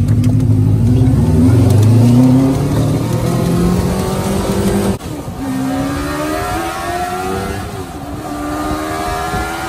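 A 600cc golf cart engine under hard acceleration, rising in pitch for about two seconds, then easing off. After a sudden break about halfway, it climbs in pitch again in a series of rising pulls.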